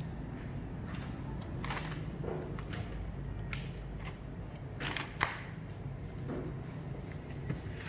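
Scattered small clicks and taps of small hard objects being handled, with one sharper click about five seconds in, over a steady low hum.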